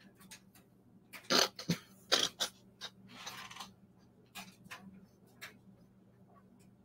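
A man's stifled, breathy laughter in short gasping bursts, trailing off into small clicks and breaths, over a faint steady hum.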